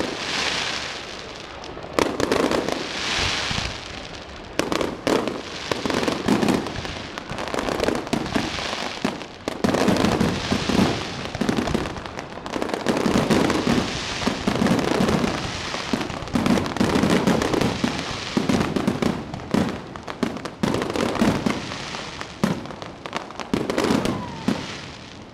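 Fireworks display: aerial shells bursting one after another, sharp bangs that come several a second at times, with a crackling hiss from the bursts between them.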